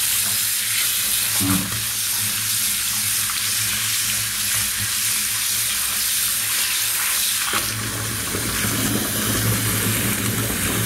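Bath tap running a steady stream of water into a filling bathtub, a continuous hiss. A hand held in the falling stream breaks up the splash.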